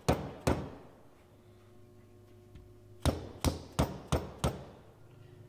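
Light blows from a small soft-faced mallet tapping a sheet-metal shield down onto a diesel injection pump's hydraulic head to seat it. Two knocks at the start, then after a pause of about two and a half seconds a quick run of five knocks.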